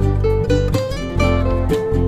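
Background music led by plucked guitar notes over a steady bass line.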